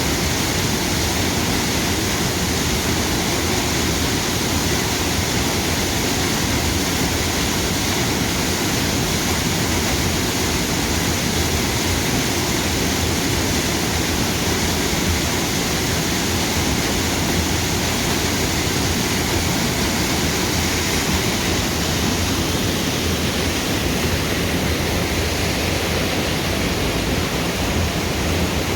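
Waterfall: steady, loud rush of falling water.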